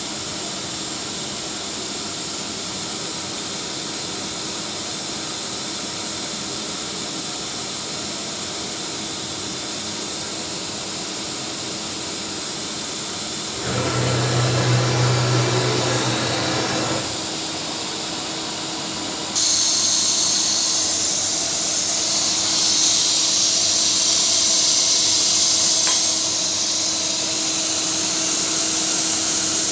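Flexicam CNC router running: a steady hiss over one steady hum, a louder, deeper stretch of about three seconds midway, then a sudden step up to a brighter, higher hiss that holds for the rest of the time.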